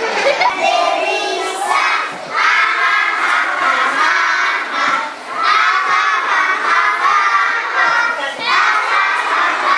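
A classroom of young children's voices together, loud, calling out in phrases about three seconds long with brief breaks between them.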